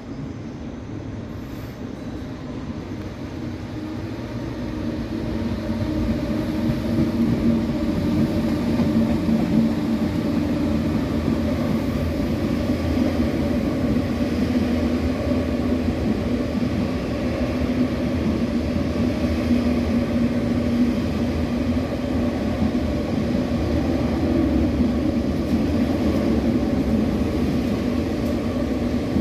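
MTR mid-life refurbished (MLR) electric multiple unit rolling slowly past on the rails. The rumble of wheels and cars builds over the first few seconds, then runs on steadily with a low hum.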